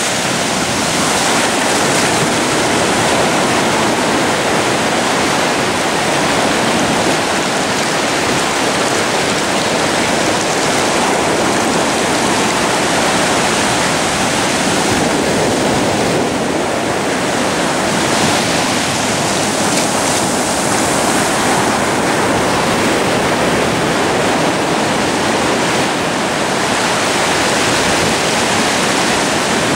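Atlantic surf breaking close by and whitewater rushing through the shallows: a steady, loud wash of water that swells and eases slightly every few seconds.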